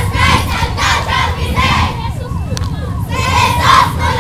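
A crowd of people shouting and cheering in repeated bursts, over a steady low rumble of motorbikes and tricycles moving along the street.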